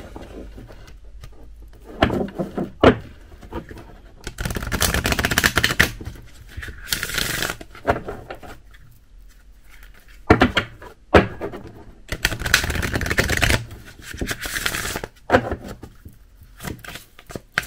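Tarot cards being shuffled by hand: two long stretches of rapid card rustling, with sharp taps and clicks between them as the deck is handled and squared.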